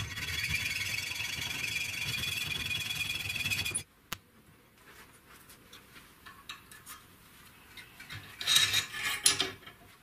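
An electric power tool running under load, with a steady high whine over a low rumble, then cutting off abruptly about four seconds in. Light clicks and taps follow, and there is a brief rubbing scrape near the end.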